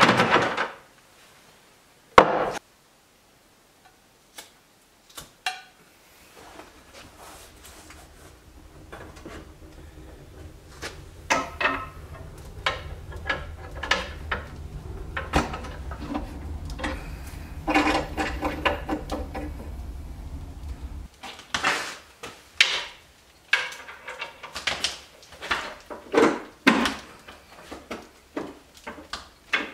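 Knocks and clatter of a cast-iron wood stove being lit and tended, wood and metal handled at its firebox and door. A low rumble runs through the middle and stops abruptly, and a run of sharp separate knocks follows near the end.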